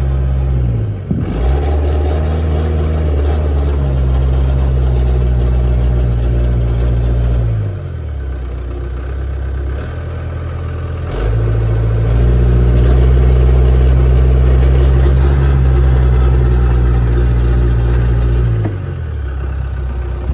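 CAT 248B skid steer's diesel engine run up to high throttle and held, dropped back to idle near the middle, then throttled up and held again before falling back to idle near the end. The seller says it doesn't run fully clean at full throttle.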